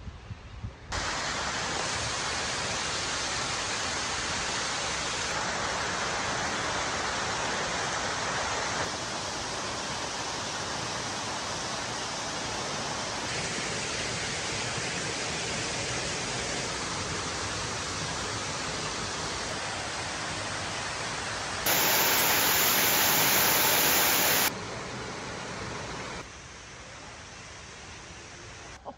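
Steady rushing water, a constant hiss with no rhythm, cut together from several takes so the level jumps abruptly several times. The loudest stretch is a brighter, louder burst a little after two-thirds of the way through, lasting about three seconds.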